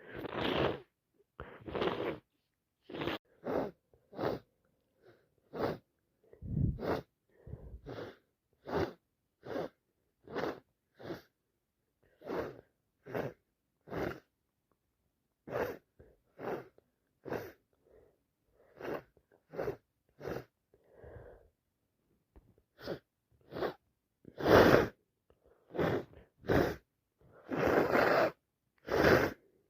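A person with a head cold sniffing and sneezing: a long run of short, stuffy sniffs about once a second, broken by a few louder, longer sneezes. The loudest comes about 25 s in, and others come in the last few seconds.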